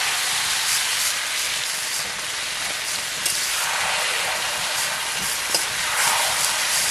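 Marinated chicken sizzling steadily in hot mustard oil in a wok, just added to the pan, while a metal ladle stirs it; a couple of sharp clicks of the ladle against the pan come about three and five and a half seconds in.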